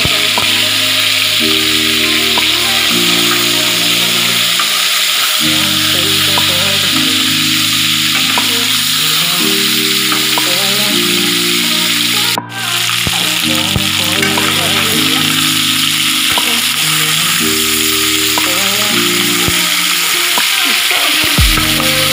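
Fish pieces frying in hot oil in a non-stick pan, a steady sizzle, stirred and turned with a spatula. Background music with slowly changing chords plays underneath, and the sound cuts out for a moment about twelve seconds in.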